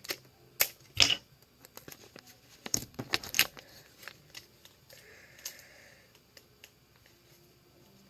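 Sticky tape being pulled off its roll and torn, with folded paper being handled: a run of sharp crinkles, taps and rasps, busiest about three seconds in, and a short steady screech of tape unrolling about five seconds in.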